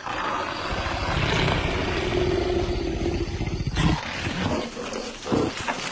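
An animal roar sound effect. It starts suddenly as a long, rough roar lasting about four seconds, followed by a few short sharp bursts.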